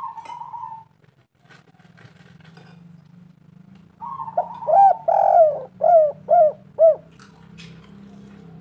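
Spotted dove cooing: a brief coo at the start, then a loud phrase of about five arching coos in the middle. A faint steady low hum runs underneath.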